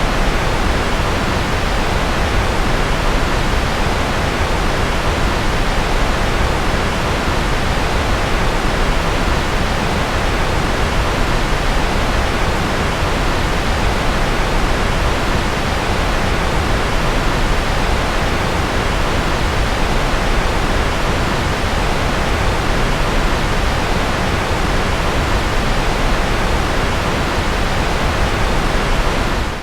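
Steady, unchanging rushing noise with a strong deep rumble, the engine-roar noise of a sleep white-noise track.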